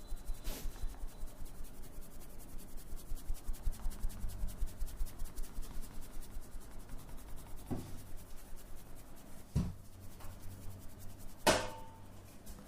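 Massage by hand: palms rubbing and patting skin in a fast, even rhythm of about five strokes a second, with a few sharp clicks, the loudest near the end.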